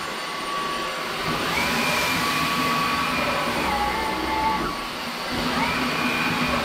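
Bosch Unlimited 7 cordless stick vacuum running on turbo, the highest setting, with a steady rush of suction under a motor whine. The whine climbs in pitch about a second and a half in, drops back around four seconds, and climbs again at about five and a half seconds.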